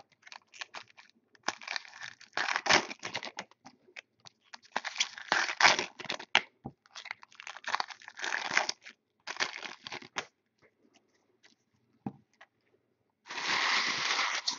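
Foil trading-card pack wrappers being torn open and crinkled by hand, in irregular bursts, with a short quiet gap and then a denser, louder stretch of crinkling near the end.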